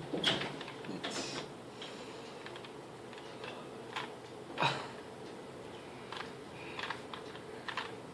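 Plastic Rubik's Cube being twisted by hand: irregular clacks of its layers turning, with pauses between them and a short run of quick clicks near the end.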